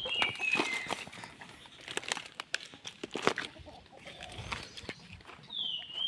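Footsteps crunching over dry leaves and fallen palm fronds, with a bird giving short falling whistles at the start and again near the end.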